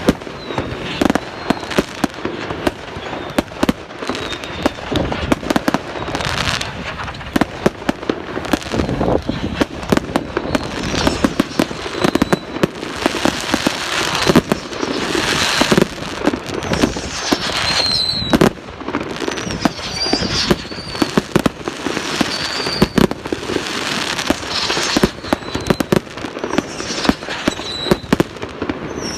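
Fireworks display: a rapid, continuous barrage of bangs and crackling, with short high whistles in the second half.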